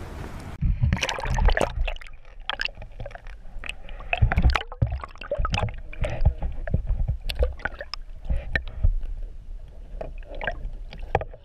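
Water sloshing and gurgling, with many irregular knocks and pops, as a striped bass is let go over the side of a boat, heard through an action camera's microphone held under the water surface.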